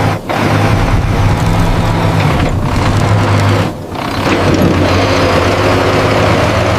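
Engine of heavy construction machinery running steadily with a low hum, briefly dipping in level twice.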